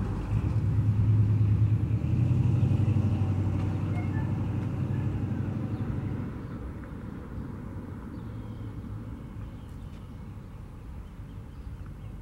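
A low, steady vehicle rumble that fades about six seconds in, leaving a quieter background with a few faint bird chirps.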